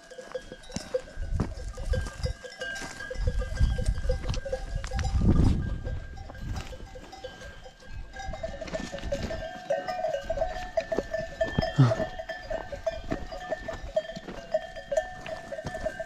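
Bells on a herd of goats clinking and ringing continuously as the animals move and graze, the ringing growing denser from about eight seconds in. A single short animal call comes near the end.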